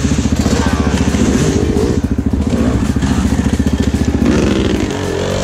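Dirt bike engine idling with a steady fast beat, while other dirt bikes ride up and pass close by, their engines rising in pitch about a second in and again near the end.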